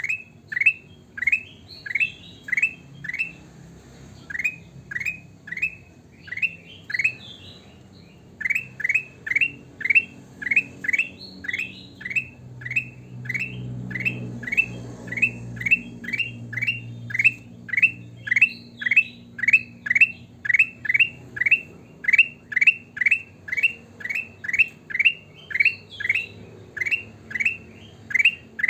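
Kutilang emas bulbul calling persistently: a long run of short, rising chirps, about two to three a second, broken by brief pauses about four and eight seconds in. A faint low rumble runs under the calls in the middle.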